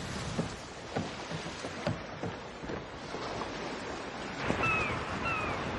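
Steady wash of sea and wind around a wooden sailing ship, with scattered light creaks and knocks. Near the end come three short, high, falling squeaks.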